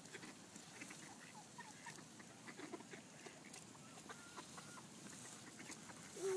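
Mallard ducks feeding on the ground: faint short clucking calls a few times, with scattered light clicks.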